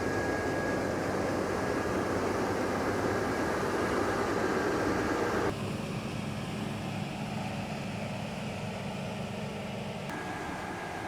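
John Deere 1100 X9 combine harvester working in wheat: a steady machine drone with a high steady whine. About five seconds in it drops abruptly to a quieter, lower hum, and the whine comes back faintly near the end.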